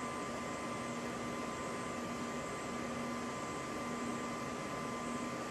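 Steady hum and hiss of a workshop hall, with a faint high whine held throughout and a lower hum that drops out and returns a few times.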